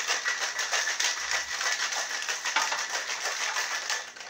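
Ice rattling hard inside a metal cocktail shaker being shaken vigorously, stopping shortly before the end.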